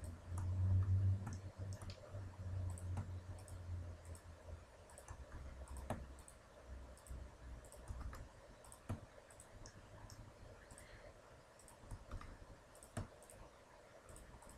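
Computer mouse clicks and keyboard key presses, short and scattered, as vertices are selected and faces filled in 3D software. A low rumble runs through the first few seconds, loudest about a second in.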